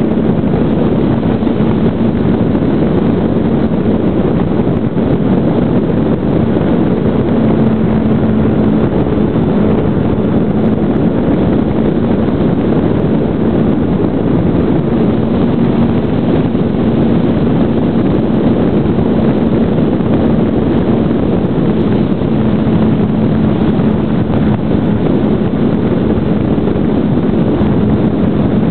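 Brushless electric motor and propeller of a GWS Slow Stick model plane, heard from a camera riding on it in flight: a steady hum that strengthens now and then, under loud wind rush on the microphone.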